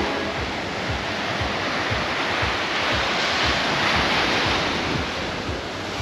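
Sea waves breaking and washing up on a sandy beach, one wash swelling about three to four seconds in, with wind buffeting the microphone.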